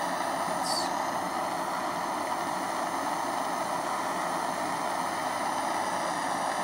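Steady hiss of a butane jet torch's blue flame playing on a 28-gauge kanthal microcoil held in tweezers.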